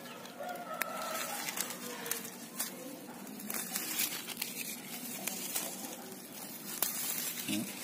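Leafy stems and leaves rustling and snapping as culantro is plucked by hand from a garden bed, an uneven scatter of small sharp cracks and crinkles.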